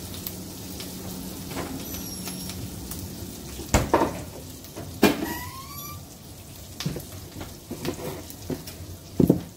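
Garlic butter and thyme sizzling steadily in a nonstick frying pan. A few sharp knocks break in, the loudest about four and five seconds in, and another cluster comes near the end.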